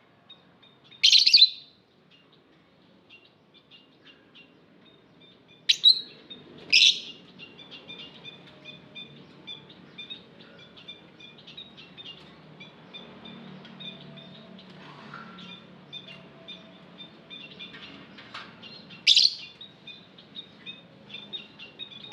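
Lovebirds chirping: a steady run of quick, high chirps, broken by four loud, sharp calls, one about a second in, two close together around six to seven seconds in, and one near the end.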